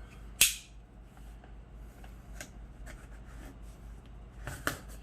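Packaging being handled as a parcel is opened: one sharp snap about half a second in, then light rustling and a few small clicks.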